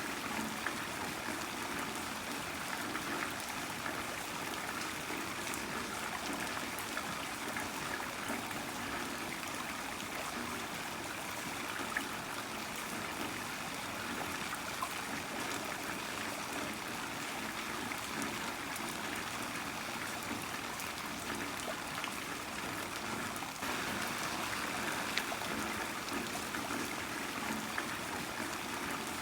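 Heavy rain falling steadily, a constant rushing hiss with scattered faint drop ticks.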